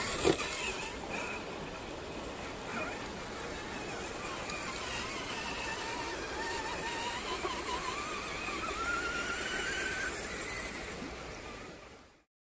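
Electric motor and gears of an RC4WD TF2 LWB scale crawler whining, the pitch wavering and climbing over several seconds, with a sharp knock just after the start. The sound fades out near the end.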